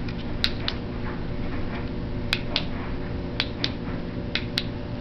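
Sharp plastic clicks from a hand working the front bumper and light bar of a Losi High Roller RC truck, coming in four pairs about a quarter second apart, over a steady low hum.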